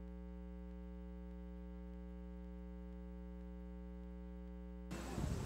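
Steady electrical hum with a stack of evenly spaced overtones, with no field sound under it. Outdoor noise and voices cut back in abruptly near the end.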